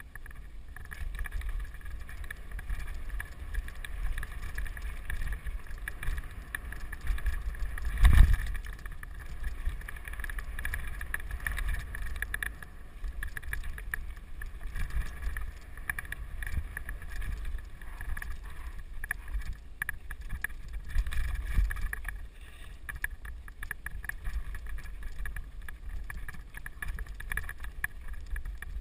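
Mountain bike descending a rough dirt and rock trail, heard from a helmet camera: a steady rumble of wind on the microphone and tyres over the ground, with frequent small knocks and rattles from the bike and one hard jolt about eight seconds in.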